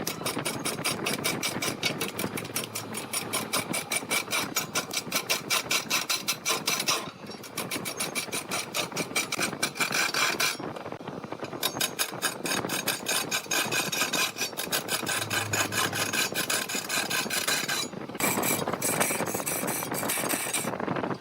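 Wood lathe turning a blank that is not yet round: the cutting tool scrapes the wood in a fast, even rhythm of several strikes a second, one for each turn of the piece. It lifts off for a moment a few times and then bites again.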